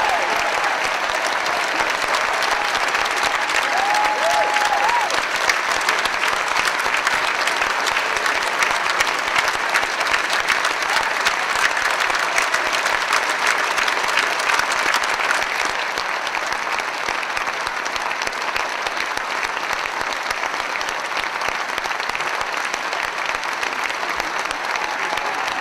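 Large concert audience applauding loudly and steadily at the end of a song. The applause eases a little after about fifteen seconds.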